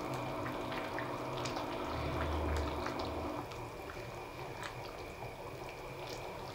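Chicken soup with moringa leaves and bottle gourd being stirred in a pot: broth sloshing and dripping, with scattered light clicks and taps of the utensil.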